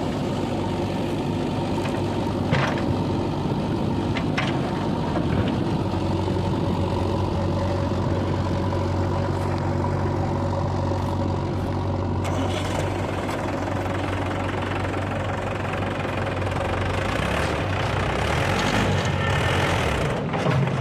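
Heavy diesel machinery engine running steadily, a backhoe loader or tractor at work, with a few sharp knocks in the first five seconds. From about twelve seconds in the sound gets busier, and it grows a little louder near the end.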